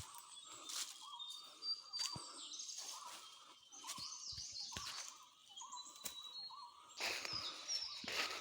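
Several wild birds singing and chirping, with thin high whistles and glides over a lower chirp repeated again and again, and a few sharp clicks. A louder rustling noise comes in near the end.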